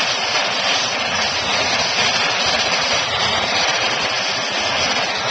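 Gas torch flame rushing steadily as it heats the dented steel fuel tank of an ATC 70 to soften the metal.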